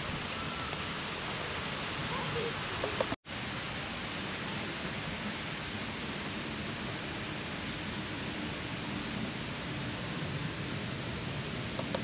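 Steady rush of flowing water, an even noise with no rhythm, broken by a brief cut to silence about three seconds in.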